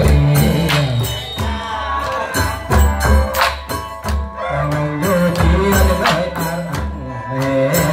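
Live Surin Khmer folk music for the rueam anre bamboo-pole dance: a man singing through a microphone over a small ensemble with a hand drum, keeping a steady beat of strikes.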